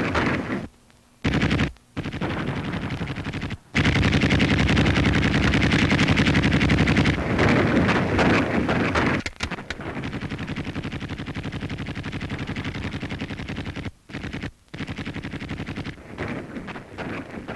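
Machine-gun fire in long, rapid bursts, with a few short breaks in the first four seconds and two more about fourteen seconds in. The firing is heaviest from about four to nine seconds in.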